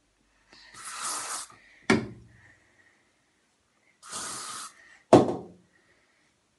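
Aerosol hairspray sprayed twice in bursts of about a second, each burst followed shortly by a sharp knock.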